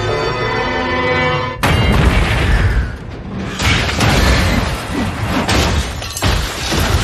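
Film score music, cut off about a second and a half in by a sudden loud crash, followed by a run of heavy booms and crashing impacts: an airship being wrecked and crushed under a moving city's tracks, as movie sound effects.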